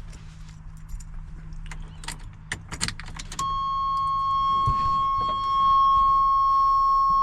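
Keys jangling and clicking in the ignition of a 1989 GMC Sierra pickup. A few seconds in, the key is turned to on and a steady, high-pitched dashboard warning buzzer starts abruptly and keeps sounding.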